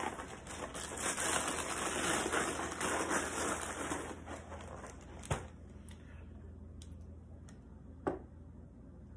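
Dry Drumstick cereal pieces pouring from the box into a bowl, a rattling patter for about four seconds that thins out, followed by a couple of light clicks.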